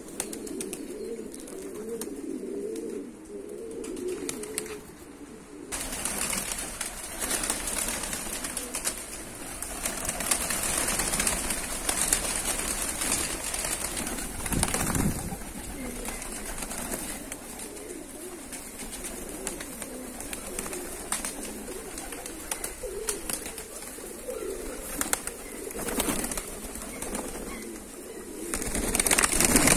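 A flock of Georgian fighting pigeons cooing, joined from about six seconds in by rustling and wing flapping, with a louder burst of flapping around the middle.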